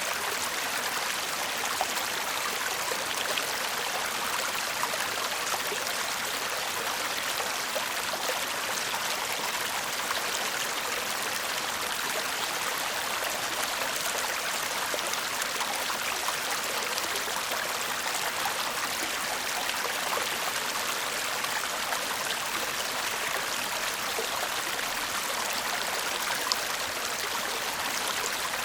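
Shallow stream babbling and trickling steadily, with small splashes scattered through it.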